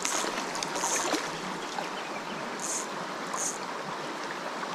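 Creek water running steadily over rocks, with four brief high hisses, two early and two past the middle.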